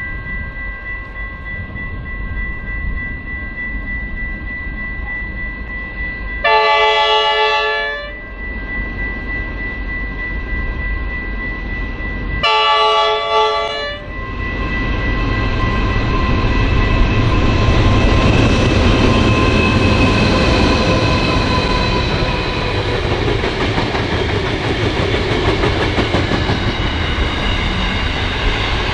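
Pacific National freight train's diesel locomotives approaching with a steady engine whine, sounding two horn blasts of about a second and a half each, some six seconds apart. The engines then grow louder and drop in pitch as they pass close by, followed by container wagons rolling past.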